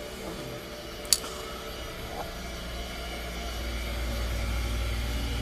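Elevator ride sound effect: a sharp click about a second in, then the low steady hum of the moving car, swelling in the second half.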